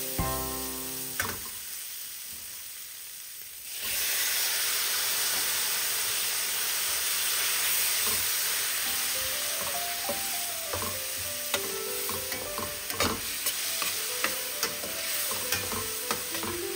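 Food frying in oil in a stainless steel pan: the sizzle jumps up suddenly about four seconds in, as tomatoes go into the hot oil with the onions and green chillies. A spatula scrapes and taps against the pan as the mixture is stirred.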